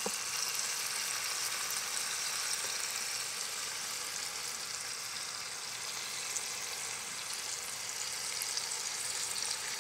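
Browned oxtails sizzling steadily in a hot pot as marinade is poured over them.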